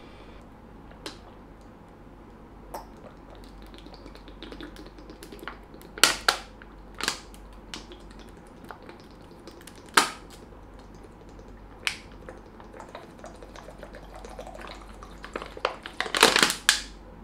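A thin 550 ml plastic water bottle crackling and popping now and then as it is drained upended in one long swig, with a louder burst of crackling near the end.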